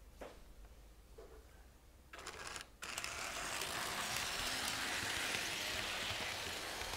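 HO-scale model train running on the layout's track: a steady rolling hiss that starts suddenly about three seconds in, after a few faint clicks.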